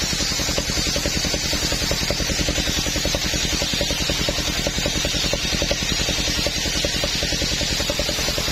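Table circular saw ripping a coconut-wood plank: a steady hiss from the blade cutting the wood, over the rapid, even chugging of the engine that drives the saw.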